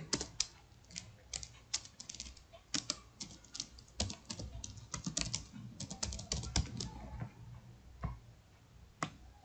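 Typing on a computer keyboard: a run of quick, irregular keystrokes that stops about seven seconds in, followed by two single clicks.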